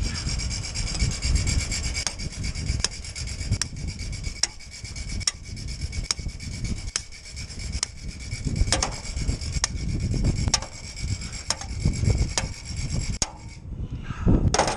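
Hammer drill boring into concrete for anchor bolts, running steadily, with a low rumble of wind buffeting the microphone that rises and falls in gusts.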